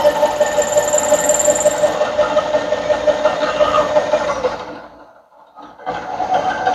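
Bridgeport milling machine's end mill cutting an acetal bar square: a steady whine with cutting noise. It fades out about four and a half seconds in, then comes back briefly near the end.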